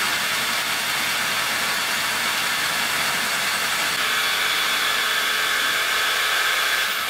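Jigsaw running steadily while a cordless drill spins a wooden blank through a jig mounted on it, the reciprocating blade shaving the blank round into a dowel.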